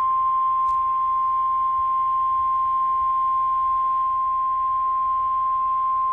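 NOAA Weather Radio warning alarm tone, one steady, unbroken high tone sounding over faint radio hiss, alerting listeners to a tornado watch.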